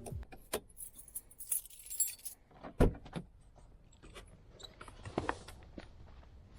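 A bunch of keys jangling, with a high jingle about a second and a half in, amid scattered clicks and knocks.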